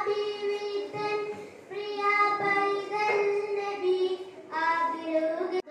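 A boy singing solo into a handheld microphone, holding long sustained notes. The voice breaks off abruptly for an instant near the end.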